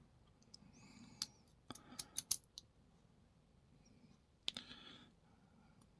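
Small metallic clicks and taps from a brass padlock's parts and hand tools being handled during disassembly. There is a single click about a second in, a quick cluster of sharper clicks about two seconds in, and one more click midway.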